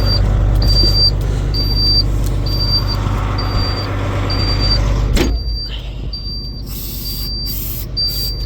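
11.1-litre Detroit Diesel inline-six in a 1995 International cab-over semi idling steadily after a cold start, with a high-pitched beep repeating a little under once a second. A knock about five seconds in, after which the engine sound is duller, and short hisses near the end.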